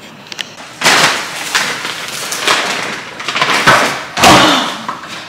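A few thumps with rustling handling noises, the loudest a little after four seconds in.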